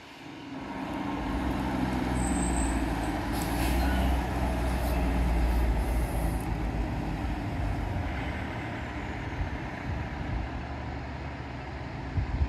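Fire engine's diesel engine running as the truck drives past, growing louder as it comes near, loudest around the middle, then fading as it pulls away, with no siren. A short bump near the end.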